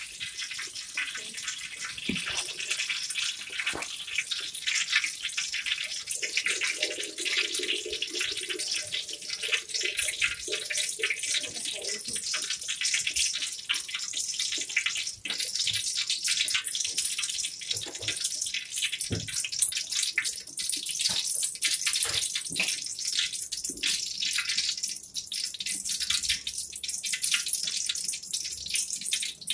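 Water running from a tap into a sink: a steady splashing hiss with scattered light knocks.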